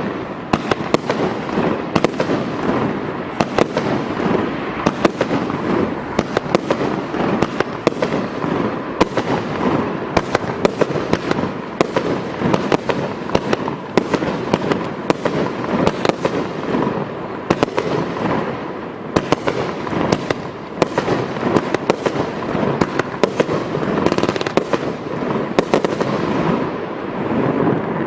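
Cat4 25-shot firework cake firing: a long string of sharp reports, about one or two a second, over a continuous dense crackle from its strobe effects.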